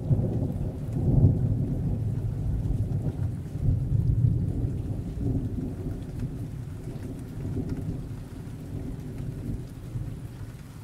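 Deep rolling thunder, swelling about a second in and again around four seconds, then slowly dying away.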